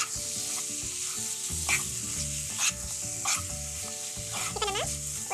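Chicken wings sizzling in a thick onion-tomato masala in a non-stick wok while a spatula stirs them, scraping across the pan now and then. The raw chicken has only just gone into the masala and is being tossed to coat it.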